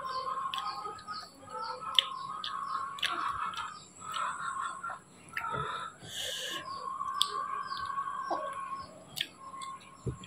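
Birds chirping over and over in short, high, downward-sliding chirps, with a few sharp clicks and a brief hiss about six seconds in.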